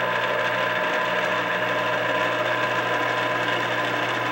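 An old Hy-Gain antenna rotator running, its small motor and gear-reduction drive humming steadily as it slowly turns the antenna mount.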